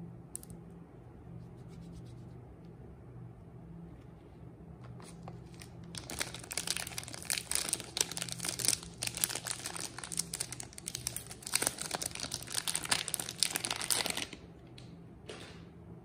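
Paper wrapper of a Lifebuoy soap bar being torn open and crinkled by hand. The dense crackling starts about six seconds in and stops abruptly about two seconds before the end. A faint steady low hum runs underneath.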